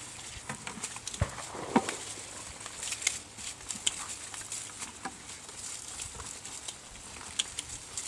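Grapevine being hand-picked: vine leaves rustling, with irregular small clicks and snaps as grape clusters are cut and handled, and a couple of louder knocks in the first two seconds.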